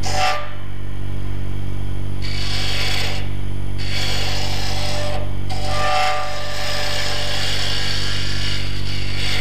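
Jet wood lathe motor humming steadily while a carbide woodturning tool cuts the spinning wooden bottle stopper: a scraping hiss of wood being cut that starts about two seconds in and breaks off briefly twice as the tool is eased off the work.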